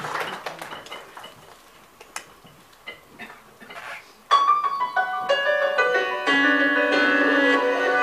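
The last scattered claps die away, then after a quiet stretch an instrumental karaoke backing track starts abruptly about four seconds in, with held keyboard-like notes stacking up.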